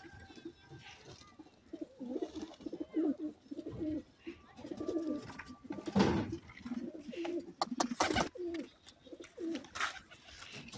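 Domestic pigeons cooing, many low calls overlapping and repeating from about two seconds in. A few sharp clicks cut through, one about six seconds in and another about eight seconds in.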